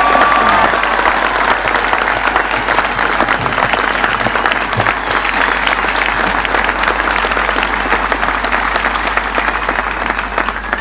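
Large outdoor crowd applauding steadily, easing off slightly toward the end.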